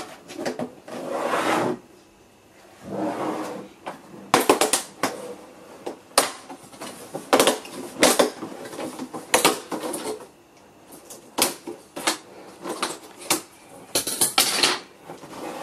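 Plastic snap clips on the Samsung U32R590CWE curved monitor's back-cover trim strip popping loose as the strip is pried off. A few seconds of plastic rubbing and handling come first, then a long run of sharp clicks and snaps, a dozen or more, some in quick pairs.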